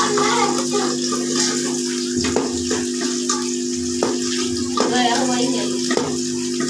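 Sliced onions sizzling in hot oil in a metal pot, stirred with a metal spoon that knocks against the pot a few times.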